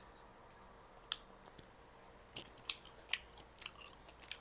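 Faint eating sounds: about six short, sharp clicks and smacks of a mouth chewing, irregularly spaced from about a second in.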